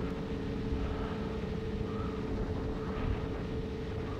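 A 7-inch FPV quadcopter's motors and propellers give a steady hum at cruise, with wind rumbling on the microphone underneath.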